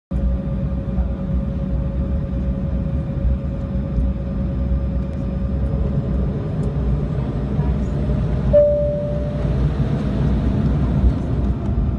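Jet airliner cabin noise while taxiing: a steady low rumble from the engines at taxi power, with a faint steady whine and a short clear tone about eight and a half seconds in.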